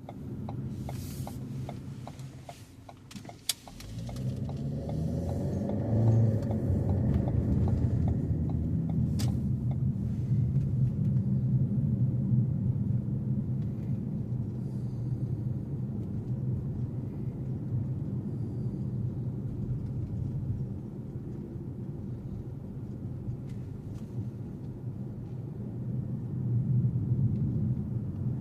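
Car driving: a steady low engine and road rumble that comes up about four seconds in, after a few sharp clicks.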